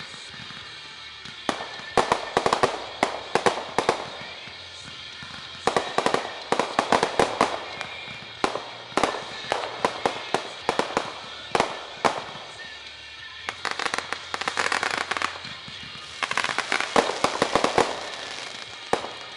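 Fireworks going off in quick volleys of sharp cracks and crackling pops, in five clusters of one to two and a half seconds each, with short lulls between.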